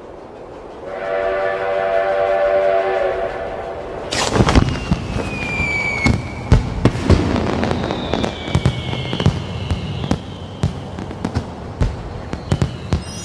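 A steam train whistle blows a held chord for about two and a half seconds. Then fireworks go off: many sharp bangs, whistling rockets that slide in pitch, and crackling.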